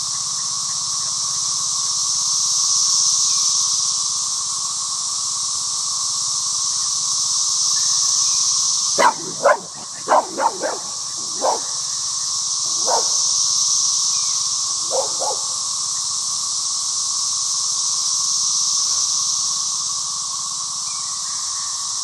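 A chorus of 17-year periodical cicadas drones loudly and without a break, a high steady hiss with a lower steady whine beneath it. Midway a dog barks in a quick run of about six barks, then a few more single barks over the chorus.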